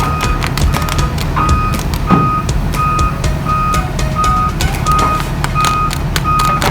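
Heavy-equipment travel alarm beeping steadily about once every 0.7 s over a running diesel engine, with short metallic knocks and clanks throughout, as an excavator is driven off a delivery truck.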